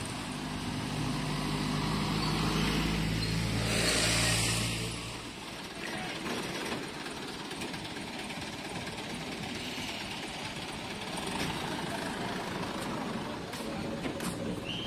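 Truck engine running steadily, with a short hiss about four seconds in. After about five seconds the engine tone drops away, leaving a steady outdoor noise.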